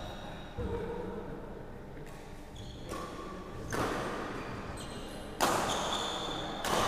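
Badminton rally in an echoing hall: rackets hitting the shuttlecock with several sharp strikes a second or two apart, the loudest two in the second half, with short squeaks of shoes on the wooden court floor between them.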